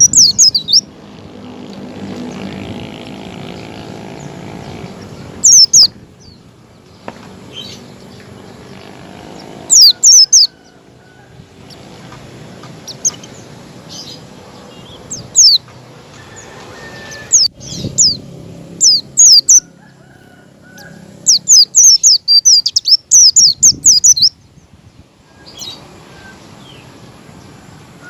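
Pleci (white-eye, Zosterops) giving wild-style 'ngalas' calls: bursts of quick, high chirps every few seconds, over a steady low background noise.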